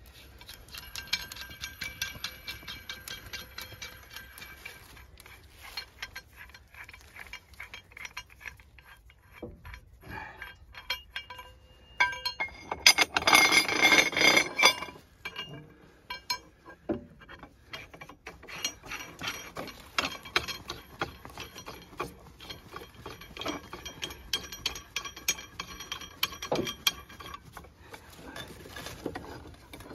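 Steel parts of a hydraulic track pin press clinking and rattling as the adapter block, threaded rods and nuts are fitted onto an excavator track link. There are scattered metallic clicks throughout and a louder burst of metal rattling around the middle.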